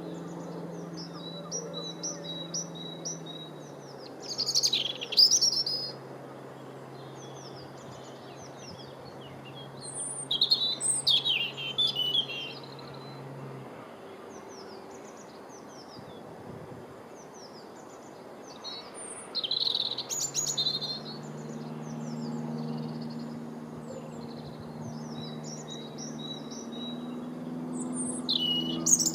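Small birds singing and chirping: many short high calls throughout, with louder bursts of song about five seconds in, around ten to twelve seconds, around twenty seconds, and near the end. A faint low steady hum lies underneath, changing pitch a few times.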